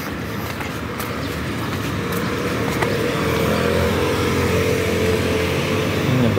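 Road traffic: a car passing close by, its noise building steadily and loudest near the end.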